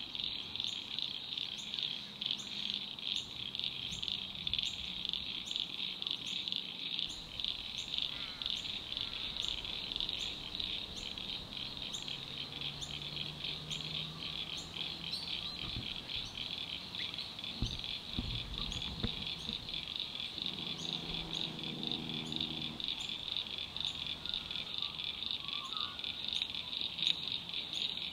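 Dense chorus of insects trilling steadily at a high pitch, with a regular series of short, higher chirps repeating above it.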